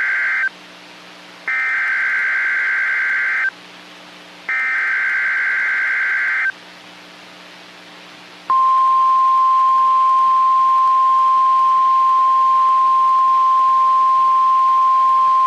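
NOAA Weather Radio EAS/SAME alert: the end of one screeching digital data burst, then two more of about two seconds each, a second apart. About eight and a half seconds in, the steady single-pitch weather radio alert tone starts, signalling that a watch or warning message follows.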